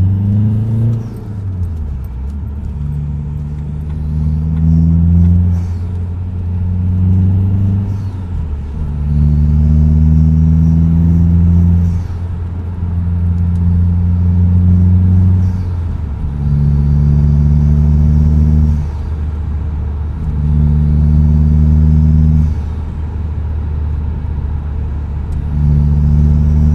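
Vauxhall Astra H 1.9 CDTi four-cylinder turbodiesel, remapped and fitted with an open induction filter, revved about seven times and held for a second or three each time before dropping back to idle. A high turbo whistle rises and falls with each rev, and the turbo flutters as the throttle closes.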